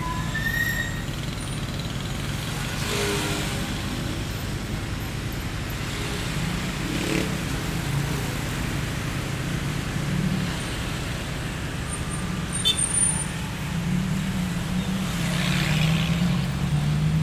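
Street traffic ambience: a steady low hum of engines with vehicles passing now and then. A rising siren tails off in the first second, and an engine hum grows louder near the end.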